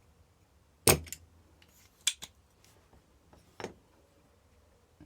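Sharp clicks from a spring-loaded solder sucker (desoldering pump) being fired and handled while clearing solder from a circuit board's switch holes: the loudest snap about a second in, then a quick pair of clicks and one more a little later.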